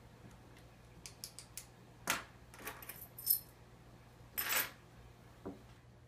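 A bunch of keys jingling and small objects, a pen and a plastic cup, handled and set down on a countertop: scattered light clicks with two short, louder jingles at about two seconds and four and a half seconds in.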